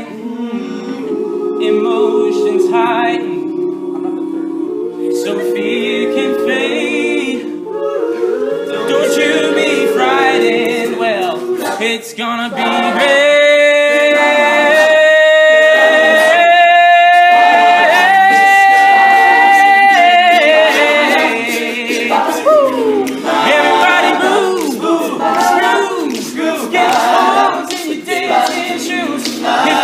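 All-male a cappella group singing wordless sustained chords. From about 13 seconds in, one voice holds a high note above them that steps up in pitch twice over several seconds. Short rhythmic vocal percussion ticks run under the singing through the second half.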